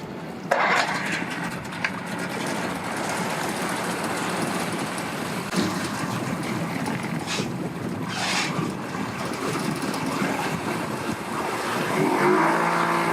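Engine running amid wind noise, with a few brief rushing bursts. Near the end a louder engine note sets in at a steady pitch.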